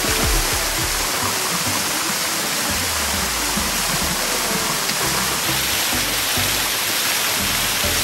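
Steady rush of a waterfall pouring into its pool, with background music underneath.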